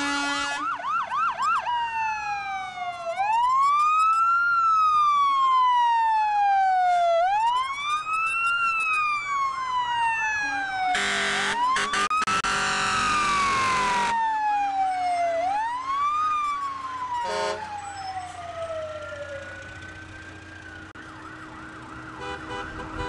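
Fire engine siren wailing up and down, each rise and fall taking about four seconds, fading out near the end. A loud horn blast of about three seconds sounds midway, and a short blast follows a few seconds later.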